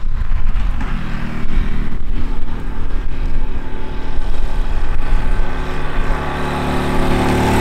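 Honda Super Cub 125's small air-cooled single-cylinder four-stroke engine running as the bike rides up a lane toward the listener, its steady engine note getting louder as it nears. A fluctuating low rumble sits under it in the first few seconds.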